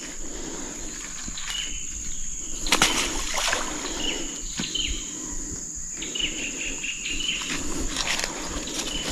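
Birds chirping in short high notes, with a quick run of chirps about six to seven seconds in, over a steady high-pitched insect drone. A brief noisy burst comes about three seconds in.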